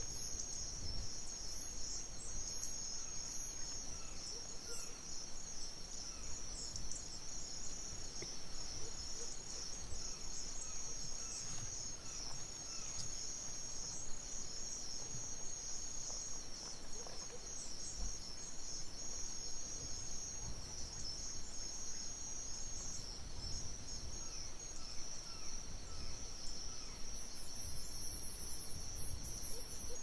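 Steady high-pitched chorus of crickets chirping, joined near the end by a faster, higher pulsing insect call, with faint occasional bird chirps.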